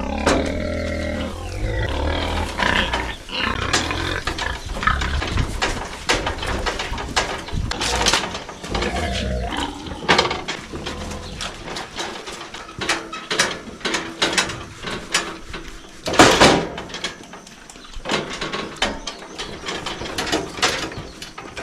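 Hungry sows squealing and grunting at feeding time, mixed with many clanks and rattles. The loudest is a bang about sixteen seconds in.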